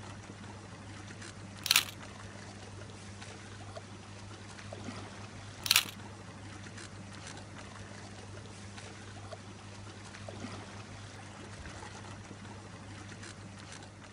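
Two sharp camera-shutter clicks about four seconds apart, over a steady trickle of running water and a low hum.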